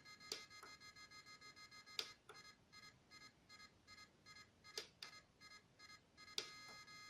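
Electronic car horn/siren module sounding through a loudspeaker: a thin, steady beeping tone of several high notes at once. After a click about two seconds in it changes to a rapid on-off beeping, about four beeps a second, and goes back to a steady tone after another click near the end, with a few more sharp clicks scattered through.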